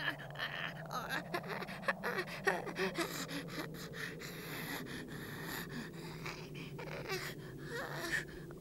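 A boy's strained gasps and heavy breathing, voiced for an animated fight scene, over a steady low hum.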